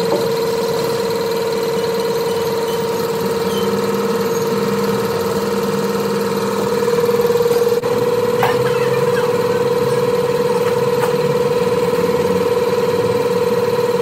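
A machine running with a steady, even whine at one constant pitch. A few light clicks come about eight seconds in.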